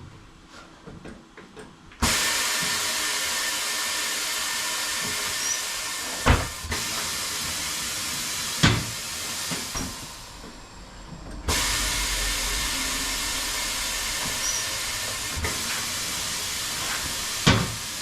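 Compressed air hissing in two long bursts that start and stop abruptly, with a few sharp metal clunks.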